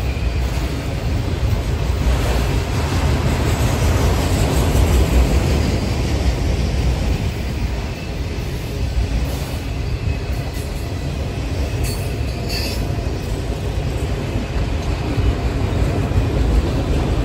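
Freight train of autorack cars rolling past: a steady rumble of steel wheels on rail, with a couple of brief clicks about twelve seconds in.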